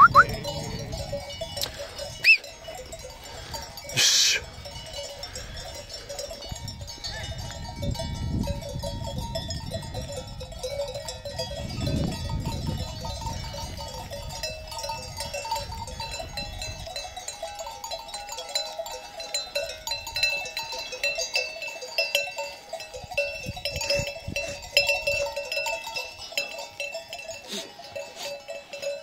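Many sheep bells clinking and ringing without pause as a flock of sheep moves and grazes, with a brief burst of noise about four seconds in.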